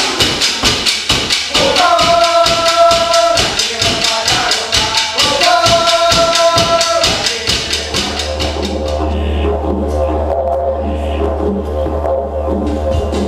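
Music: a fast, even beat with two long held notes, giving way about eight seconds in to a steady low drone.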